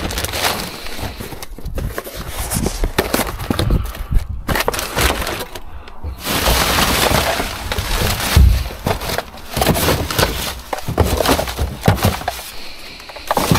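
Scrap parts being rummaged through and shifted about in a bin, knocking and clattering irregularly. A heavier thump comes a little past the middle.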